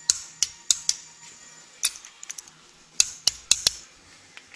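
Sharp metallic clicks, about a dozen in irregular clusters, from a torque wrench being worked on the rocker shaft bolts of a Duramax V8 cylinder head. The bolts are being torqued to 30 ft-lb.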